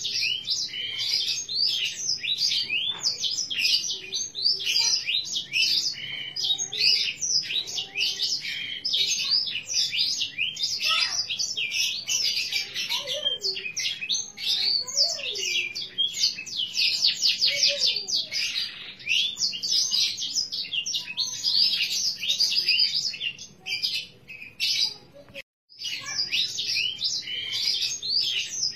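Green canary singing a long, continuous song of rapid high chirps and trills, with a brief break near the end.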